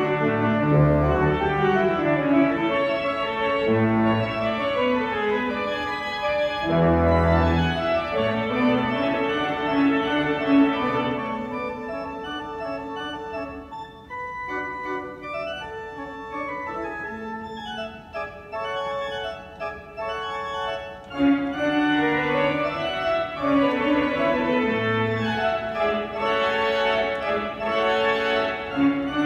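Pipe organ playing a lively piece of many moving notes. About twelve seconds in it drops to a quieter, thinner passage, and the fuller sound returns around twenty-one seconds in.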